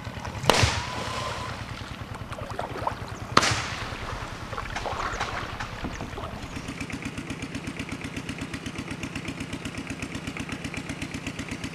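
A boat motor running steadily, with two sharp splashes about three seconds apart. From about six seconds in the motor settles into an even, rapid chugging.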